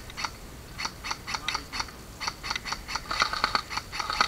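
Airsoft guns firing: a string of sharp snapping clicks, two or three a second, quickening into a rapid burst about three seconds in.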